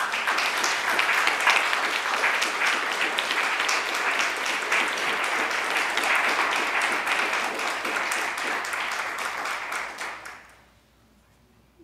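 Audience applauding, a dense patter of many hands clapping that lasts about ten seconds and then dies away.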